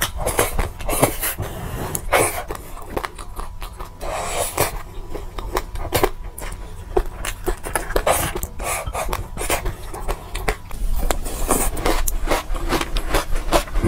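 Close-miked eating: mouth sounds and chewing of seeds, with a spoon scraping a glass bowl, making many small crackles and clicks.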